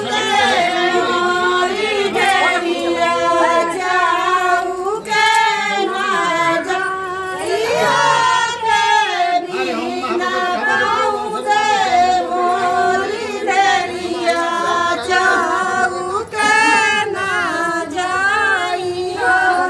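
Women singing a traditional Indian wedding folk song (lokgeet) with no instruments, several voices together in a continuous, gliding melody.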